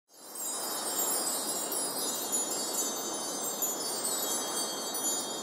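Shimmering sparkle of chimes over a steady airy rush, a logo-intro sound effect, fading in just after the start.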